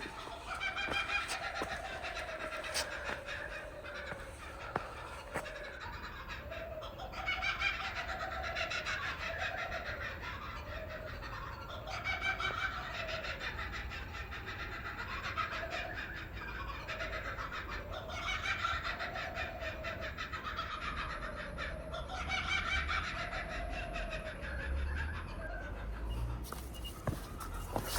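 Birds calling in the bush: short rising-and-falling calls repeated over and over, with other birds chattering higher up over them.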